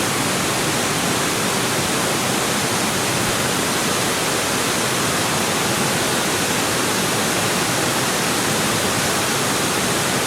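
Steady, loud rush of falling water from a waterfall, an even hiss with no changes.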